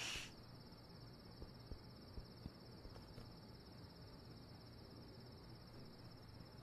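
Faint, steady chirring of crickets, a night-time ambience, with a short hiss right at the start and a few faint soft knocks.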